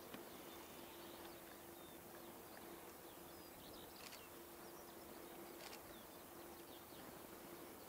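Near silence: faint chirping of small birds scattered throughout, over a faint steady hum.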